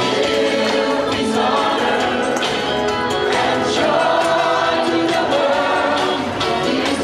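Large gospel choir singing, with the singers clapping their hands along.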